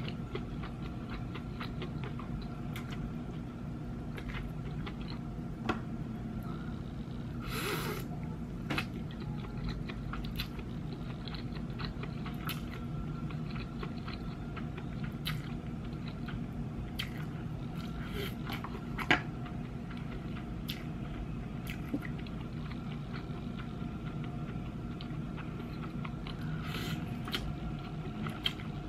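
A person slurping and chewing cold buckwheat noodles (naengmyeon), with small wet mouth clicks throughout and two longer slurps, about eight seconds in and near the end. A steady low hum runs underneath.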